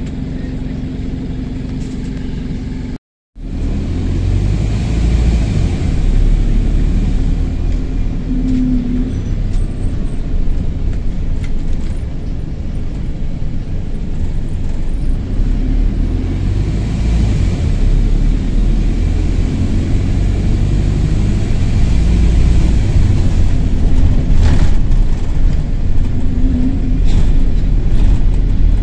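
London double-decker bus's diesel engine heard from the upper deck, running hard with a loud low rumble that breaks off for a moment about three seconds in. A very high whistle rises and falls a few times over it, with the rough sound of a burst turbo exhaust.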